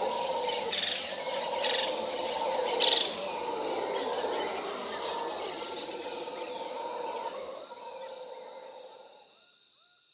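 Crickets trilling steadily over a busy rural ambience. The sound fades down toward the end, where a short call repeats about twice a second.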